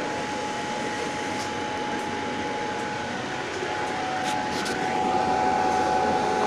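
Laser cutter running while it cuts out shapes: a steady mechanical hum with a whining tone from the moving head's drive. About five seconds in, the whine drops a little in pitch and grows louder.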